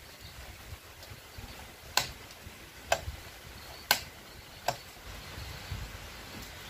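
Four sharp clicks, about a second apart, over faint low background noise.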